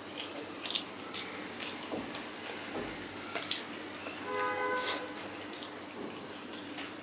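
Close-up eating sounds: a man chewing rice and greens with wet lip smacks and mouth clicks, and the soft squish of his fingers mixing rice on a steel plate. A short steady tone sounds about four seconds in.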